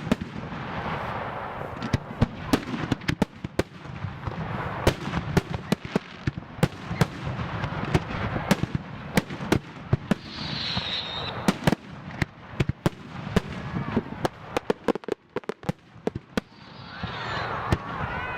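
Aerial firework shells bursting in rapid succession: a dense barrage of sharp bangs, often several a second, over a continuous low rumble, easing briefly a couple of seconds before the end.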